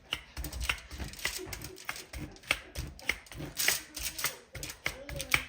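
Push-down mechanical meat tenderizer being pressed again and again into raw deer backstrap, its blades piercing the meat with a quick run of clicks and squelches, about three strokes a second.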